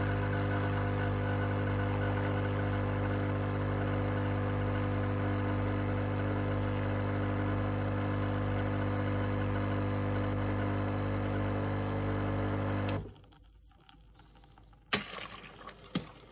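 Sage Barista Pro espresso machine's vibratory pump humming steadily as it pulls a shot, cutting off suddenly about 13 seconds in as the shot ends. Two sharp clicks follow a couple of seconds later.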